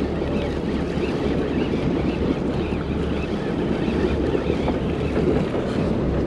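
Steady wind noise on the microphone at sea, over the low steady drone of a boat and the wash of water.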